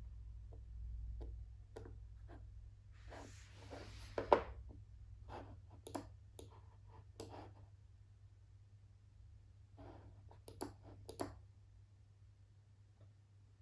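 Scattered clicks and taps from desk work, mouse clicks and a stylus on an iPad screen, with a short scratchy stretch of writing a few seconds in and a quick cluster of clicks later on, over a faint low hum.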